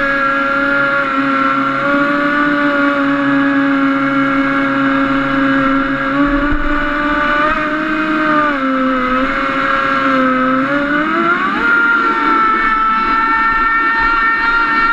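Radio-controlled boat's motor, heard from on board, running steadily at a high pitch. The pitch drops about eight and a half seconds in, then climbs back up around eleven seconds as the throttle opens again.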